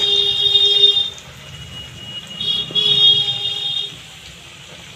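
A loud pitched tone, a low note with a shrill high one over it, sounds twice: about two seconds, then after a gap about a second and a half. Underneath is the faint sizzle of potato pieces deep-frying in oil in a kadai.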